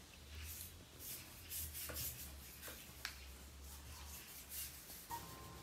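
A pen scratching across sketchbook paper in a run of short drawing strokes, with a couple of light taps.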